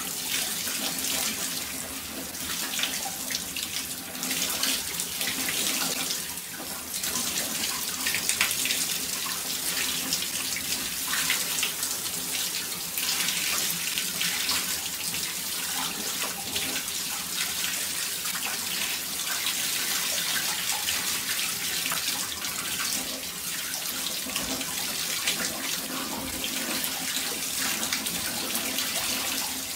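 Water running steadily from a tap, an even rushing stream.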